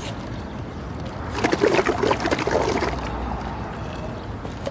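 A drink slurped through a straw from a cup, a gurgling, bubbling suck lasting about a second and a half.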